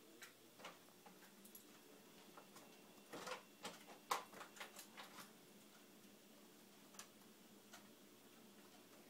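Faint clicking and clattering of a pet door flap as a small dog pushes through it, tugging a large plush toy behind it. There are a few single clicks, then a cluster of clicks and knocks about three to five seconds in, and a couple of lone clicks later; otherwise near silence.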